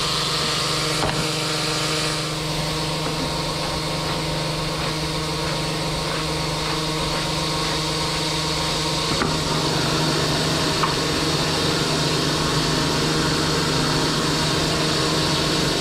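High-pressure drain jetter running steadily: a constant engine-and-pump hum under a rushing hiss of water jetting through the drain pipe.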